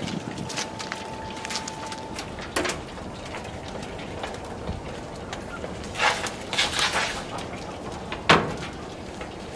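Wood fire crackling and popping inside a gas cooker converted into a wood stove, with flames venting through the burner holes: irregular sharp snaps, a quick run of them about six seconds in. One louder knock comes just after eight seconds.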